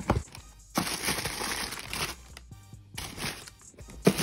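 Tissue paper in a shoebox crinkling and rustling in several bursts as hands pull it back, after a brief thump from the box right at the start. Background music underneath.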